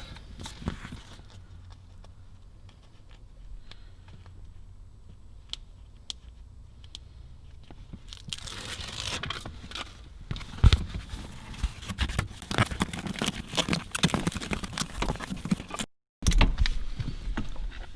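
Heat insulation padding being handled, tucked behind a foam shield and pressed into place, making crinkling and rustling sounds. It starts with a few faint clicks and grows into dense crinkling about halfway through.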